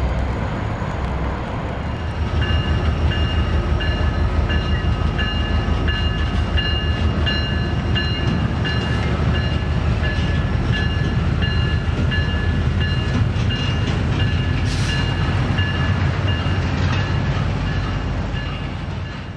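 Freight train with diesel locomotives running past, a steady heavy rumble with wheel noise. From about two seconds in a bell rings steadily, about three strikes every two seconds, and everything fades out at the end.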